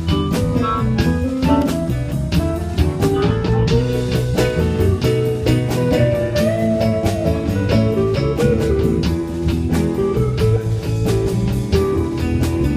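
Live band playing a slow blues in E: a guitar melody bending up and down over a steady drum beat and bass.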